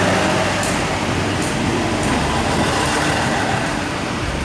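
Batara Kresna railbus running slowly past at very close range, a steady rumble with a few sharp clicks in the first second and a half.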